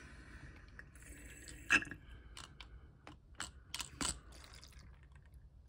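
Plastic battery hydrometer handled and its nozzle put into a car battery cell's filler hole to draw electrolyte: a scatter of small clicks and knocks, the loudest about one and a half seconds in.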